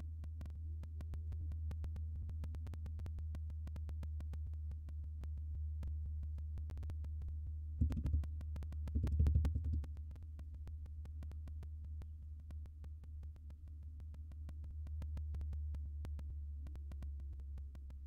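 A steady low hum with faint rapid ticking over it, and two brief, louder low thumps about eight and nine seconds in.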